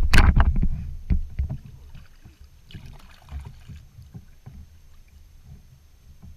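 Bumps and knocks on a plastic kayak, loud and rumbling in the first second and a half, then dying down to scattered light knocks with a brief hiss about three seconds in.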